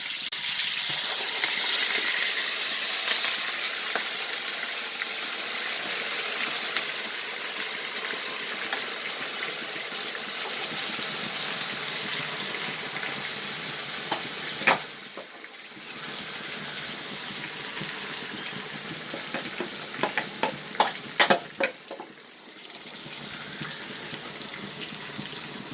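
Marinated chicken pieces sizzling in hot coconut oil, a loud steady hiss that eases off gradually. A few sharp clicks come in the second half.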